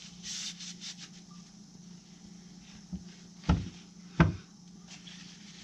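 Two sharp knocks about two-thirds of a second apart, engine parts handled and set down on a workbench, over a steady low hum.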